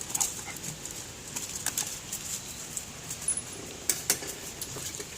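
Dogs moving about, with scattered light clicks and scuffles.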